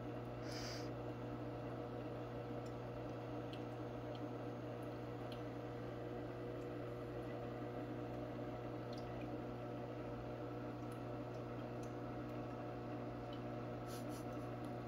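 Aquarium pump running with a steady hum, with faint watery dripping and a few faint ticks.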